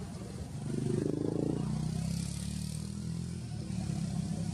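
Motor vehicle engine running steadily, growing louder about a second in.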